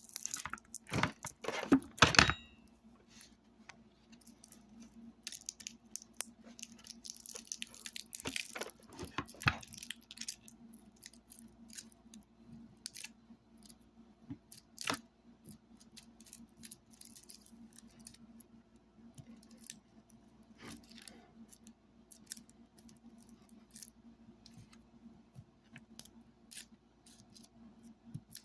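Metal snips at work on a torn-down computer speaker: several loud sharp snaps in the first two seconds, then rustling and scattered clicks and snips as parts are cut and handled.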